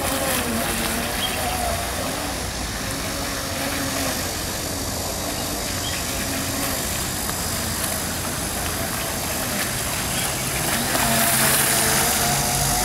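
Radio-controlled speed boat's motor whining, its pitch rising and falling as it runs across the water, over a hiss of spray. It gets louder about eleven seconds in as the boat passes close.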